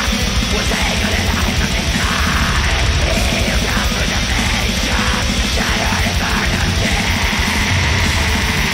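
Black metal playing from a vinyl record on a turntable: fast, dense drumming under distorted guitars.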